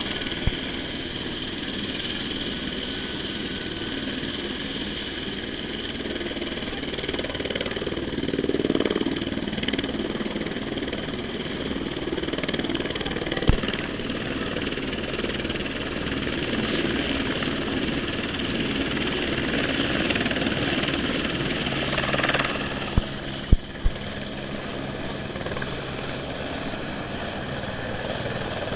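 Tour helicopters running on a heliport pad: a steady rotor and turbine noise that swells and fades slightly. A few sharp clicks cut through it, one near the middle and three in quick succession about three-quarters of the way in.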